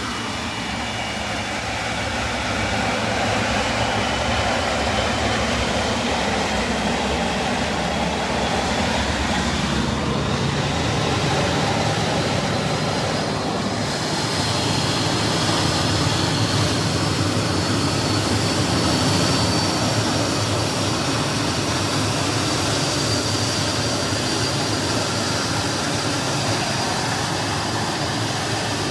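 Concorde's Olympus 593 turbojet engine running on a ground test. A steady jet roar grows louder over the first few seconds, with a high whine that slowly rises in pitch as the engine spools up.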